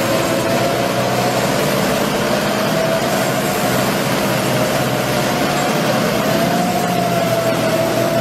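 Tractor diesel engines running hard under load as two tractors pull against each other in a tug-of-war, a steady drone with a high whine that rises and falls slightly in pitch.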